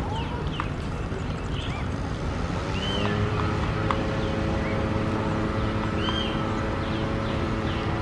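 A steady low motor drone, with a humming tone joining it about three seconds in, under many short, arching bird chirps and a few faint taps.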